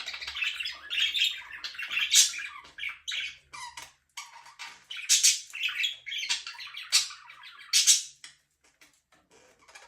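Budgerigars chattering and chirping, broken by several loud, sharp squawks, with a short pause near the end.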